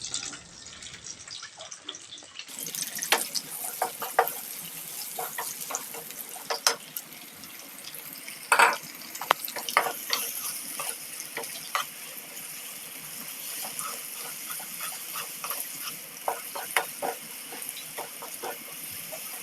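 Sliced onions frying in hot oil in a pan: a steady sizzle dotted with crackles and pops, setting in about two and a half seconds in.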